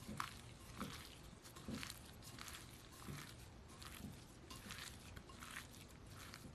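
Sliced raw chicken being mixed with dry seasonings in a bowl: faint, soft squelches coming irregularly, about one a second.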